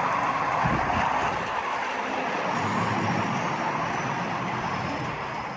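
Steady background noise of road traffic, an even rush with no distinct engine or horn standing out.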